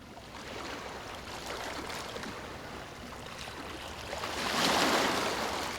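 Ocean surf washing ashore: a steady hiss of water that swells into one louder breaking wave about four and a half seconds in.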